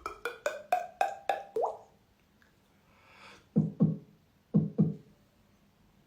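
Beatboxing: mouth-made percussive pops and clicks. A fast run lasts just under two seconds and ends on one upward-sliding pop. A short soft hiss follows, then two pairs of low pops.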